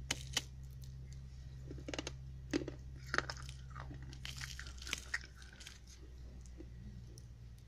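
A thin, dry, brittle slate-pencil 'roti' disc cracking and snapping as fingers break it apart: several sharp cracks and crunches at irregular intervals, mostly in the first five seconds, over a low steady hum.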